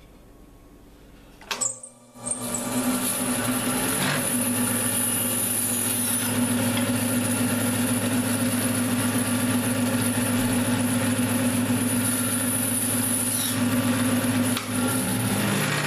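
Woodworking bandsaw switched on with a click about a second and a half in, then running steadily with a low hum and a high whine while it cuts the waste ends off a turned wooden blank.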